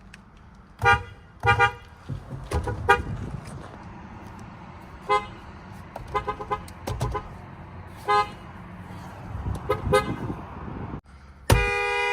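Toyota car horns sounded in a series of short toots, some in quick pairs, followed near the end by a louder blast of about a second from a horn with a lower, two-note chord.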